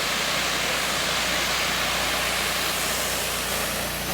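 Pressure washer spraying: a steady hiss of the water jet over the even drone of the washer's motor, dipping slightly near the end.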